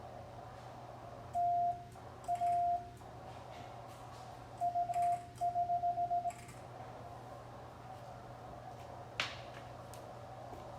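Morse code (CW) tone from an amateur radio transceiver at one steady high pitch. A few long dahs come first, then quick runs of short dits, over receiver hiss with a fainter tone beneath. A single click sounds about nine seconds in.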